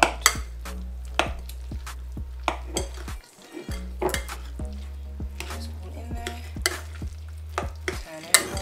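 A metal utensil stirring a thick, wet bean-burger mixture in a glass mixing bowl. It makes irregular sharp clinks against the glass, about one or two a second, between softer squelching scrapes.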